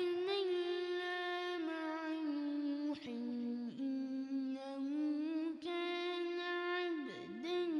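Quran recitation in the melodic, drawn-out tajweed style: a single reciter's voice holding long sustained notes with ornamented turns, pausing briefly between phrases.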